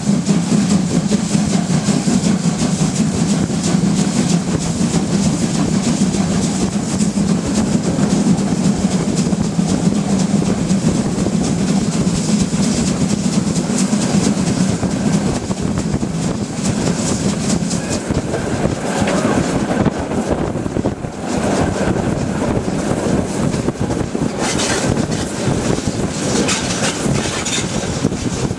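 Steam locomotive on the move, heard from its cab: a loud, continuous rush of exhaust, running gear and wheels on the rails, with the deep rumble easing after about 16 seconds.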